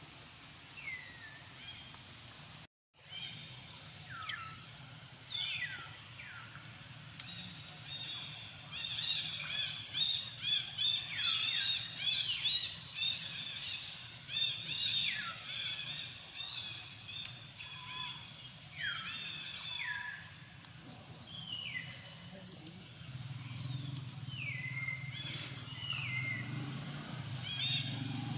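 High-pitched animal calls, many short ones sliding down in pitch, repeating throughout, with a busy stretch of rapid chirping near the middle. The sound drops out for a moment about three seconds in, and a low hum comes in near the end.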